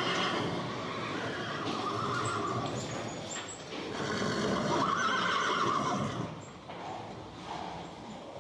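Horse neighing, with two drawn-out whinnies about two seconds and five seconds in, the second the louder, then quieter sound toward the end.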